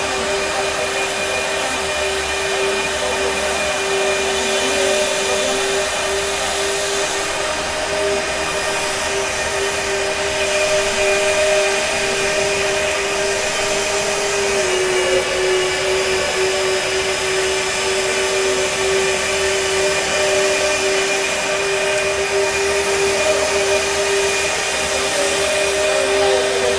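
CTO760 clamp-on pipe bevelling machine cutting a bevel on a steel pipe end, its drive running with a steady whine that drops slightly in pitch about halfway through.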